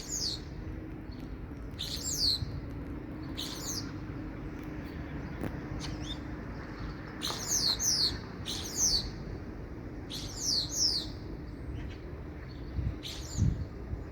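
Common starling calling: short, high whistled notes that fall in pitch, some single and some in quick clusters of two or three, every one to two seconds, over a steady background hiss.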